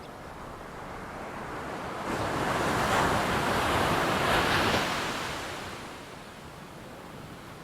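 Ocean wave breaking and washing up on the shore: a rush of surf that builds about two seconds in, is loudest in the middle, and fades away over the last couple of seconds.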